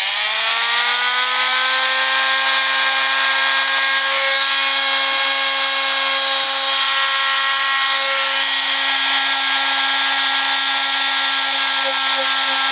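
Milwaukee oscillating multi-tool fitted with a super-fine emery-paper sanding pad, spinning up to a steady whine right at the start and running at constant speed while a small steel sewing-machine part is held against it to polish out a burr.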